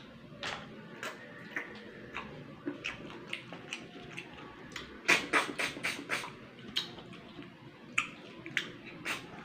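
Wet sucking and slurping as snails cooked in coconut milk are sucked out of their shells, with mouth smacks and clicks. A quick run of loud slurps comes about five seconds in.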